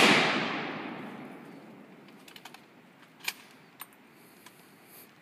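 Echo of a high-powered rifle shot rolling away and fading over about two seconds, followed by a few light clicks.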